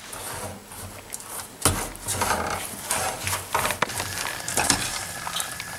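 A metal spoon stirring sugar, almonds and honey in a stainless steel pot on a gas burner as the sugar melts. It scrapes through the mixture and knocks against the pot several times.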